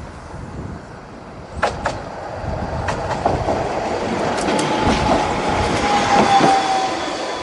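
Tosaden Kotsu 3000-type 'Heartram II' low-floor tram passing close by, its wheels clicking sharply over rail joints several times. Its motor whine comes in about halfway and drops slightly in pitch, and the sound is loudest as the car body goes past about six seconds in.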